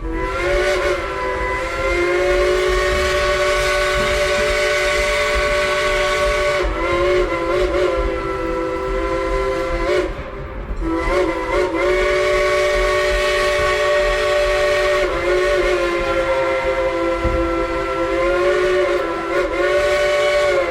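A 1938 Baldwin steam locomotive's chime whistle blown loud in long blasts, several notes sounding together, with a short break about ten seconds in and the pitch sagging briefly as blasts start and end, over the low rumble of the moving train.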